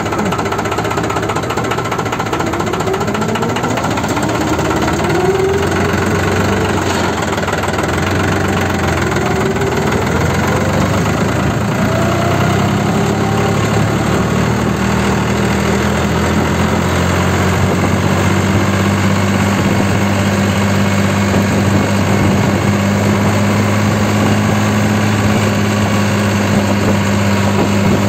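New Holland 3630 Super Plus tractor's three-cylinder diesel engine with inline injection pump, running under way. Its pitch rises several times in the first half as the tractor picks up speed, then it settles to a steady, even running note.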